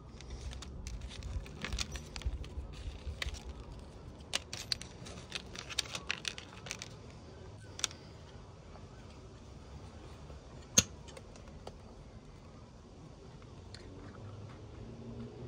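Paper engine gaskets being pressed out of a gasket-kit sheet and handled: a quick run of light clicks and crinkles, then quieter, with one sharp tap about two-thirds through. A low rumble runs underneath.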